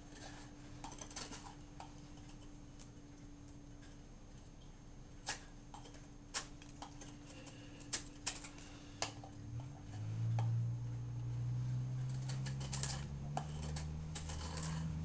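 Folding knife blade carving a pine 2x2: scattered short clicks and scraping cuts as the wood is shaved. About ten seconds in, a low steady hum comes in and continues under the cuts.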